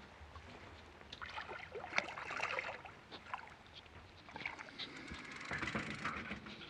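Water splashing with knocks and rustling as a hooked fish is brought up and landed, in two bouts.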